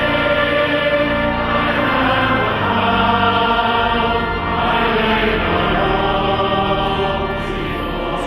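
A choir singing slow sacred music in long, held chords.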